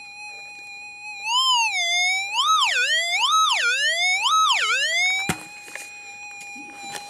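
Minelab SDC 2300 metal detector's steady threshold tone, which swells once and then warbles up and down three times as the coil sweeps over the dug-out dirt: a target signal, showing the target is now out of the hole. A single sharp knock follows, and then the steady threshold tone returns.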